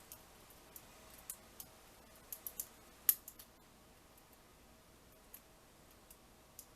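Hook pick and tension wrench working the pins of a Kwikset-keyway pin-tumbler lock: scattered light clicks and ticks, with a quick run of three about two and a half seconds in and the loudest click just after three seconds.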